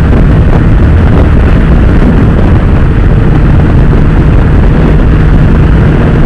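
Honda CB1000R inline-four motorcycle running at a steady speed through its Akrapovic exhaust, heard from the rider's camera. The engine note holds steady under a loud, dense low rumble of wind on the microphone.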